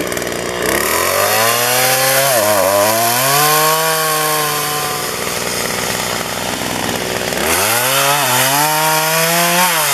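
Two-stroke gas chainsaw cutting a felled tree trunk into rounds. It revs up about a second in, its pitch dipping as the chain loads in the wood, and drops back to idle around halfway. Near the end it revs up again for a second cut.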